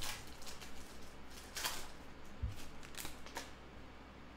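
Foil wrapper of a basketball card pack crinkling in a few short, scratchy rustles as it is torn open and the cards are drawn out, with one soft low thud about halfway through.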